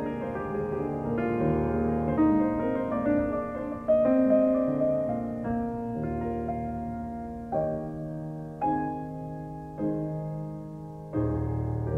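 Background piano music: calm chords and melody notes, each struck and left to ring and fade, with new notes coming every second or so.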